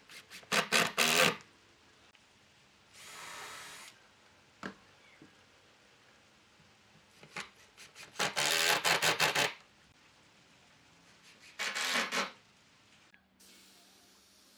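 Three short bursts of quick back-and-forth rubbing or rasping on wood: one about half a second in, a longer one around eight to nine seconds, and one around twelve seconds. A softer, smooth hiss comes about three seconds in.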